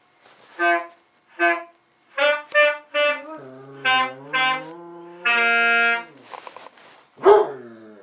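Saxophone playing a run of short detached notes, then one long held note. Near the end a basset hound gives one loud bay that falls in pitch.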